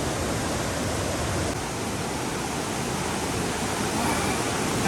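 Waterfall: a steady, dense rush of falling water close to the microphone.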